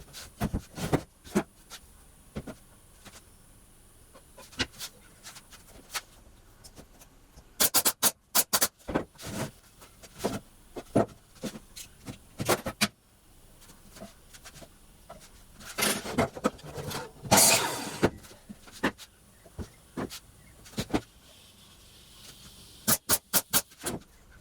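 Woodworking on pallet wood: sharp knocks, some coming in quick clusters of several a second, and a couple of seconds of rough scraping noise about two-thirds of the way through.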